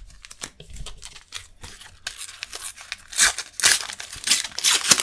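Topps sticker packet wrapper crinkling and tearing in the hands as it is pulled open: a run of sharp crackles, louder and denser from about three seconds in.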